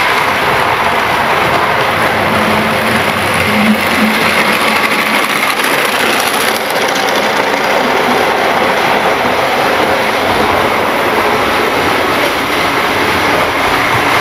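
Model train running along its track: a steady, loud rumble of wheels and motor.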